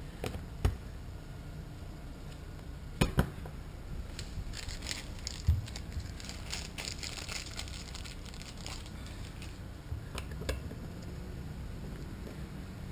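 Hands handling small plastic livewell vent parts and hardware: a few sharp clicks and knocks, the loudest a pair about three seconds in, with a stretch of crinkling rustle in the middle.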